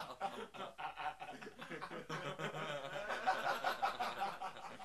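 Laughter: someone chuckling and snickering in short repeated bursts.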